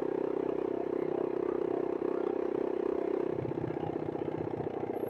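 Motorcycle engine running steadily under way, heard from the rider's helmet. About three seconds in the engine note changes and takes on a more pulsing, lower tone.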